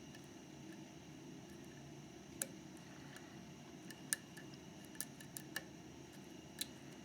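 Lock picks working inside a Mauer MLS euro cylinder lock: faint, sparse small metallic clicks, about six of them at irregular intervals over a steady low hum.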